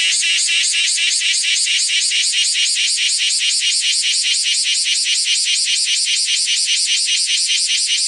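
Bear cicada (Cryptotympana facialis) singing at very close range: a loud, shrill, ear-piercing buzz that pulses evenly, about seven pulses a second, without a break.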